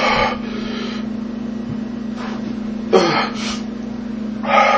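A man gasping and breathing hard through his mouth in short bursts, three strong ones and a faint one, as the heat of a Trinidad Scorpion pepper burns his mouth and throat. A steady low hum runs underneath.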